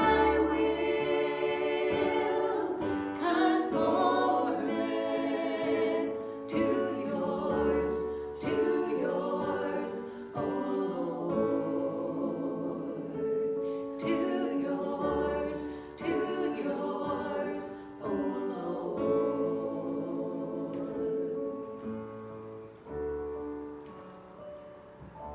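Worship music: voices singing a hymn-like song over instrumental accompaniment with a low bass. The music gradually dies down toward the end.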